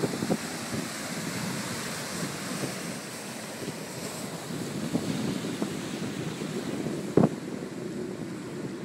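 Water splashing and rushing as a pickup truck drives through a shallow stream, with wind blowing on the microphone. One sharp knock about seven seconds in.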